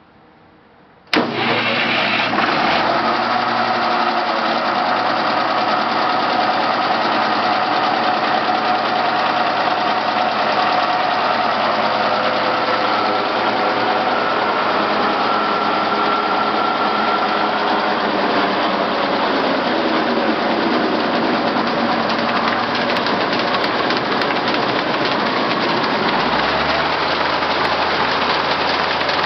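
J. A. Vance circular sawmill running on its Case six-cylinder power unit, a loud, steady engine-driven machine noise that starts abruptly about a second in.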